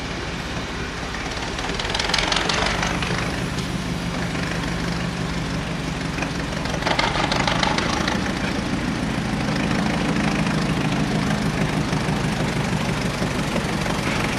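A locomotive engine running steadily, stepping up in pitch about seven seconds in, with hissing bursts of steam about two and seven seconds in as a small steam shunting engine moves slowly through the yard.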